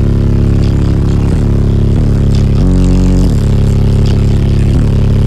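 Three Sundown Audio ZV5 15-inch subwoofers in a sixth-order wall playing a rap track's bass line very loudly, the bass note changing about every second. They are driven by a Deaf Bonce Apocalypse 8K amplifier wired down to about 0.33 ohm.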